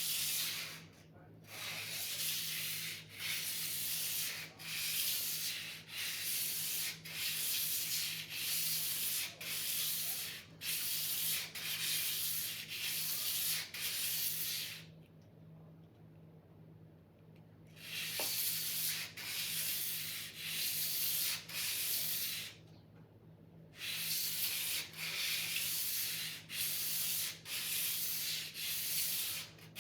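Sword blade being sharpened: a steady run of rasping strokes, a little over one a second, pausing twice for a few seconds.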